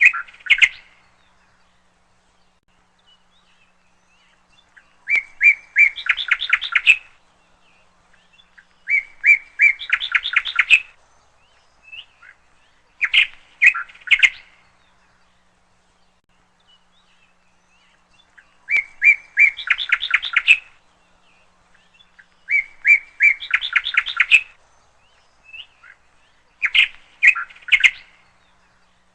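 A songbird singing the same short phrase over and over, about every four seconds: a few clear whistled notes running into a fast rattling trill.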